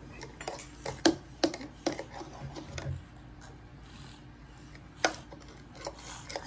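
Scattered light taps and clicks of a toddler's fingers and food against a metal bowl on a wooden table, with faint rubbing between them.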